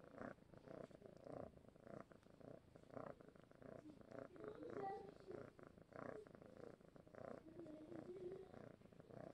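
Young grey tabby cat purring softly while being petted, the purr swelling and easing about once a second with its breathing.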